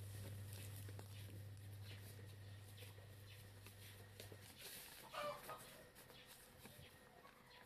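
Faint rustling and light clicks of potting soil being pressed by hand into a plastic polybag, over a low steady hum that stops about halfway through. About five seconds in there is a short call.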